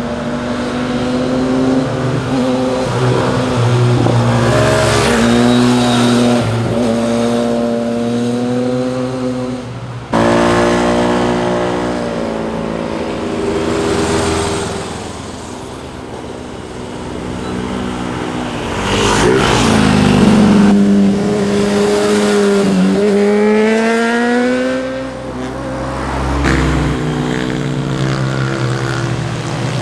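Motorcycle engines passing through a corner one after another, their pitch falling as they slow and rising again as they accelerate away; the sound changes abruptly about ten seconds in.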